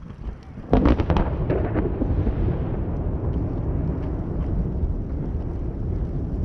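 Thunder from a close lightning strike: a sudden cracking clap a little under a second in, several quick cracks, then a long low rumble.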